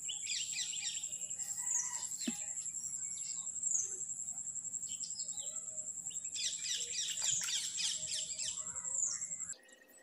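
Outdoor birds chirping in bursts over a continuous high-pitched trill that dips briefly in pitch every couple of seconds. The sound cuts off abruptly near the end.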